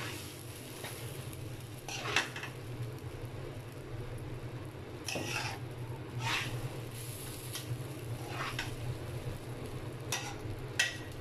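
Metal spatula stir-frying rice in a metal pan, with irregular scrapes and clinks against the pan, the sharpest about two seconds in, over a steady low hum.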